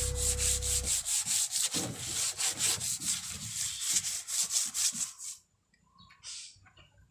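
A truck wind-deflector panel being hand-sanded, with quick back-and-forth rubbing strokes at about four a second that stop suddenly a little over five seconds in. The surface is being scuffed before painting.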